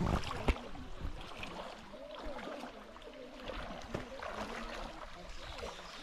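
Feet wading through shallow river water, splashing and sloshing with each step, with a couple of sharper splashes near the start. Faint voices of people in the river carry in the background.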